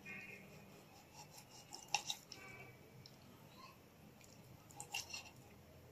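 A knife slicing raw chicken breast into cubes on a hard cutting board: faint cutting, with a sharp click of the blade on the board about two seconds in and a few more clicks near the end.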